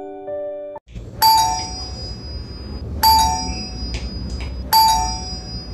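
Electric doorbell rung three times, about two seconds apart, each ring a bright chime that fades out.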